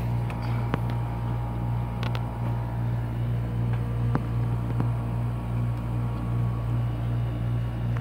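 2013 Friedrich Kuhl 14,000 BTU window air conditioner running, its compressor and fan giving a steady low hum, with a few faint ticks.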